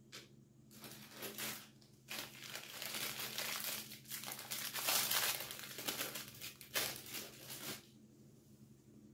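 Rustling, crinkling handling noise in several stretches, loudest about five seconds in, stopping near the end.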